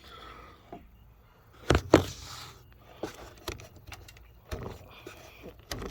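Scattered sharp clicks and knocks as a riding mower's ignition switch is pushed out of the dash panel by its tabs and handled, the loudest pair about two seconds in.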